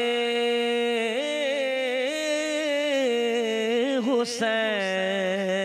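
A man singing a manqabat, a devotional Urdu poem, into a microphone, drawing out long held notes with a slow wavering pitch. There is a brief break for breath about four seconds in.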